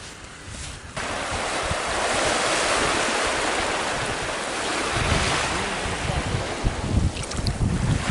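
Small waves washing onto a sandy shore in a steady wash, starting about a second in. From about five seconds in, gusts of wind buffet the microphone with a low rumble.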